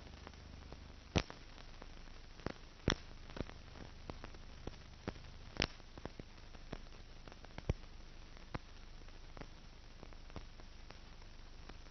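Steady faint hiss with irregular sharp clicks and pops. The loudest come about a second in, just before three seconds and a little before six seconds. This is the surface noise of a silent film's soundtrack, with no music or effects.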